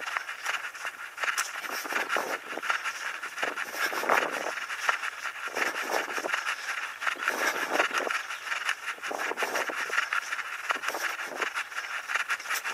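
A runner's footsteps and breathing picked up by a body-worn action camera's microphone, over a steady rushing hiss that swells about once a second.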